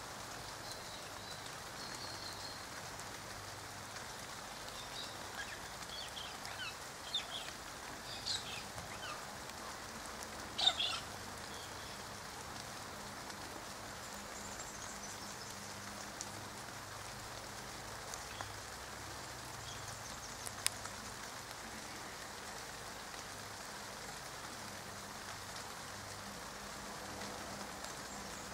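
Light rain falling steadily. A few short bird chirps come between about five and eleven seconds in, the loudest near eleven seconds.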